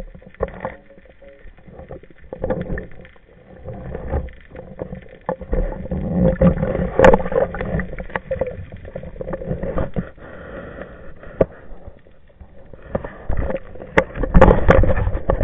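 Muffled underwater handling noise on a speargun-mounted camera: irregular knocks, rubs and water swirl as a speared dentex is worked on the shaft. The loudest bumps come near the end, when the fish presses against the camera.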